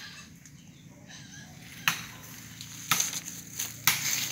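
Footsteps through dry leaves and undergrowth: after a quiet start, three sharp twig snaps come about a second apart, with leaves rustling between them.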